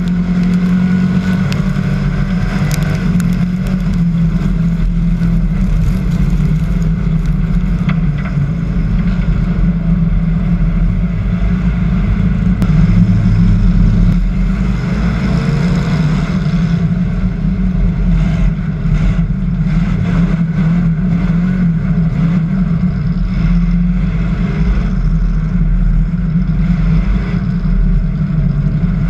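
Hobby stock race car's engine running hard at racing speed, picked up by the car's own onboard camera: a loud, steady drone with scattered sharp knocks and rattles.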